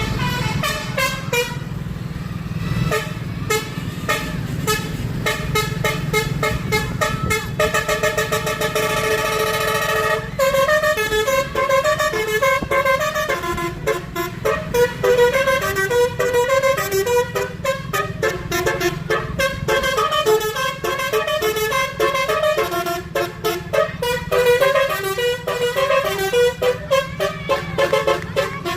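Barcelona metro train sounding a string of horn-like tones over a low rumble. The tones hold a steady chord for about the first ten seconds, then jump quickly from pitch to pitch.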